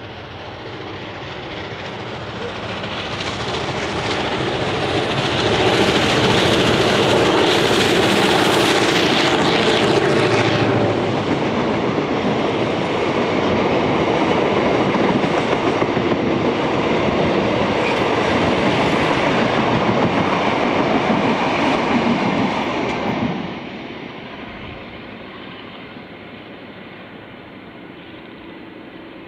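Steam locomotive R711, a North British-built Hudson, running hard with diesel-electric T395 behind it, approaching and passing close by, followed by its carriages rolling past. The sound builds to its loudest about six to eleven seconds in, stays loud, drops suddenly near the end as the train goes by, then fades.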